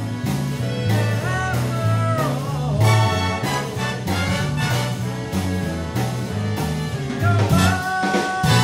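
Swing band music, an instrumental passage with no singing: a bass line stepping from note to note under a steady beat, with a lead instrument playing lines that bend in pitch.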